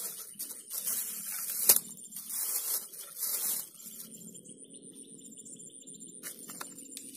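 Rustling and handling noise of clothing and fishing gear as someone bends and gathers their things, with one sharp click about two seconds in. After about four seconds it settles to a quieter, even outdoor background.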